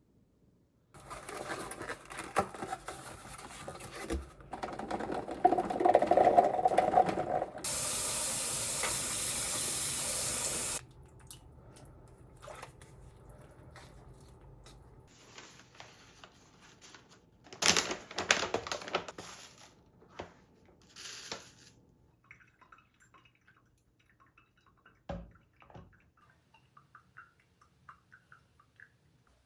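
Water running from a kitchen tap into a sink, splashing and changing at first, then a steady full run for about three seconds that cuts off abruptly; scattered knocks and clatters follow.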